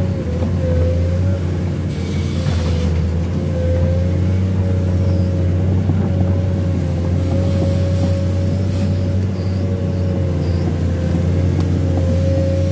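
Komatsu PC210 excavator's diesel engine running steadily as the machine travels, a constant low drone with a thin, slightly wavering whine above it.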